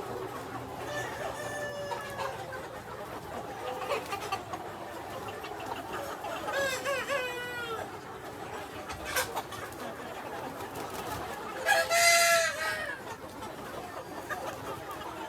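Free-range chickens clucking, with a rooster crowing several times; the loudest crow comes near the end.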